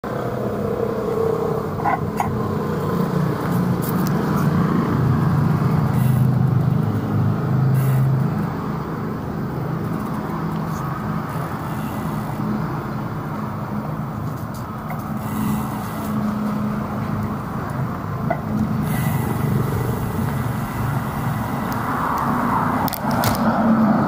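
City street traffic with motorbike engines running steadily, heard from a rider moving along the road.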